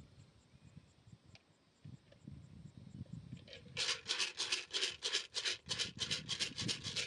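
Rhythmic rubbing or scraping strokes, about four a second, starting a little under four seconds in.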